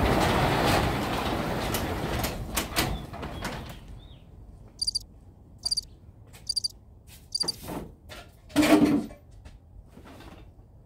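A sectional garage door is pulled up by hand and rattles along its tracks for about three seconds, then goes quiet. After that come a few short high chirps and a short clunk a couple of seconds before the end.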